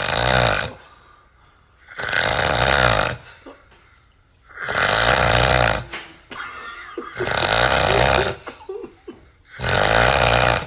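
Loud snoring: five snores in a row, each about a second long, coming about every two and a half seconds with quieter breathing gaps between.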